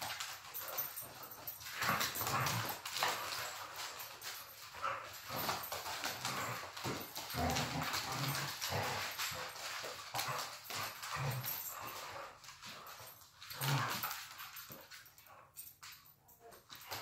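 Dogs play-wrestling on a hardwood floor: scuffling and clicking paws, with short low dog noises every few seconds. It grows quieter near the end.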